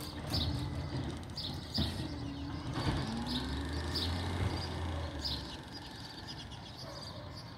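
A large box truck's engine rumbles as it pulls away, rising in pitch about three seconds in and fading after about five seconds. A bird chirps about once a second over it.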